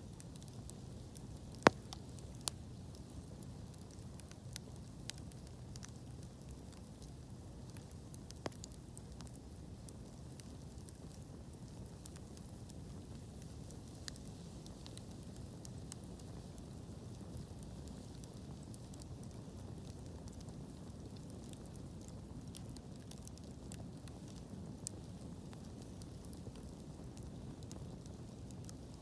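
Wood fire burning with a steady low rumble and scattered sharp crackles and pops, the loudest a single pop about one and a half seconds in.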